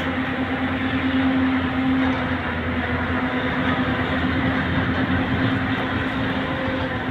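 Heavy diesel engine of construction machinery running steadily, a constant drone with an unchanging low hum.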